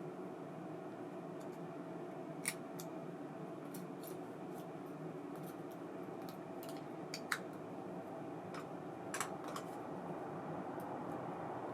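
Sharp, scattered metallic clicks from small parts and tools being handled while working on an ABU Ambassadeur 2500C baitcasting reel, heard over a steady low hum.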